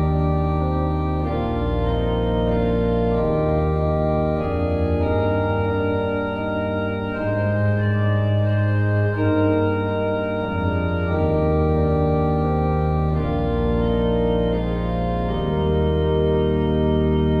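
Organ playing slow, sustained chords, moving to a new chord every second or two.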